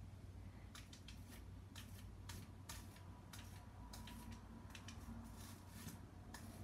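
Faint, irregular scratchy strokes of a hairbrush drawn through a baby's hair, a couple of strokes a second.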